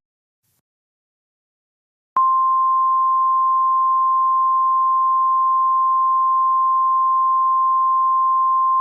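NOAA Weather Radio 1050 Hz warning alarm tone: after about two seconds of silence, a single steady pure beep starts and is held, signalling that a warning (here a tornado warning) is about to be read.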